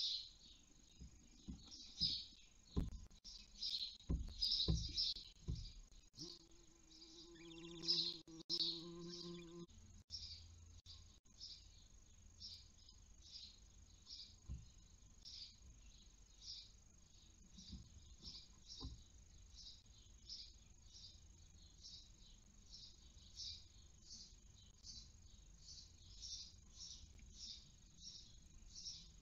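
Barn owl chicks in a nest box giving repeated hissing begging calls, about two to three short rasps a second. Low thuds of the birds moving on the box floor come in the first few seconds.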